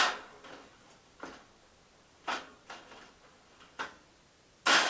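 A handful of sharp, irregular knocks and clinks from the BioLite Basecamp stove's cooking grill being handled and set in place on the stove, loudest at the start and again just before the end.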